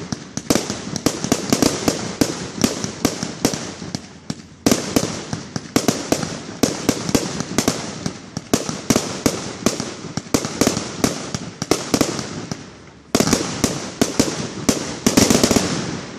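Ground-launched consumer fireworks firing a rapid string of sharp bangs and pops, several a second. The volley eases off briefly, then starts up again loudly about four and a half seconds in and again near thirteen seconds.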